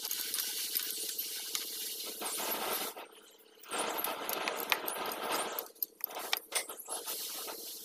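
Metal hand tools clinking and scraping against a diesel engine block as a wrench and hex key work its bolts, a scatter of sharp clicks over a steady hum and hiss, with a brief quieter gap partway through.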